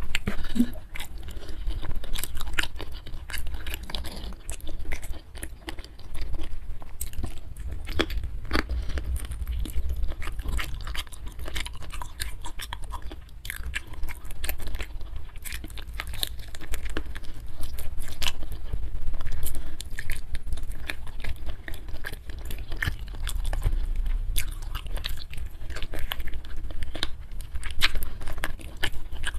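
Someone chewing and biting sweet-spicy braised chicken feet close to the microphone: a steady run of wet clicks and smacks over a low rumble.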